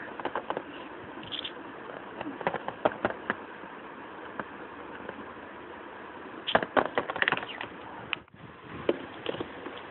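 Light, irregular clicks and taps of small plastic Littlest Pet Shop toy figures being handled and set down on a hard tiled surface, with the busiest clusters about two to three seconds in and again around seven seconds.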